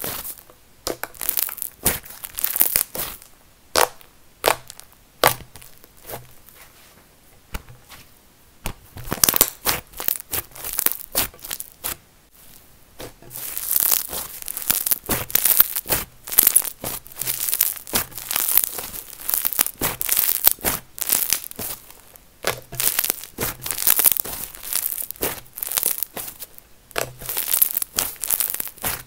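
Soft white snow butter slime being squeezed and pressed between two hands, giving quick runs of small clicks, pops and crackles. The crackling thins out for a few seconds a quarter of the way in, then comes thick and fast through the second half.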